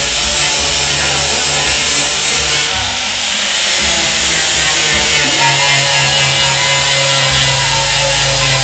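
Background music: an instrumental stretch of a song with guitar, no singing.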